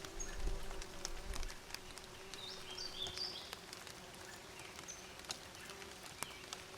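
Bees buzzing with a steady hum, with a brief run of short high bird chirps about halfway through and scattered light ticks. A low rumble in the first second and a half is the loudest part.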